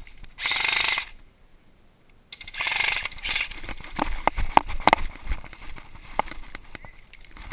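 Two short rasping bursts, then a couple of seconds of irregular knocks, snaps and heavy footfalls, as of a player pushing through dense brush in gear.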